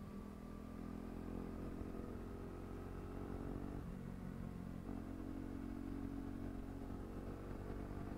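KTM RC390's single-cylinder engine running steadily at cruising speed, heard from on the bike, with a slight change in pitch about four to five seconds in.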